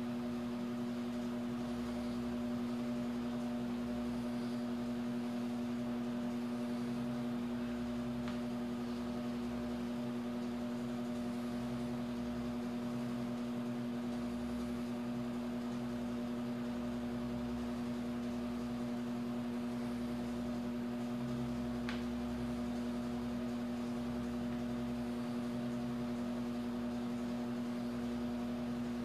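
Steady machine hum: one strong low tone with a few fainter higher tones, unchanging throughout. Two faint clicks, about eight seconds in and again around twenty-two seconds.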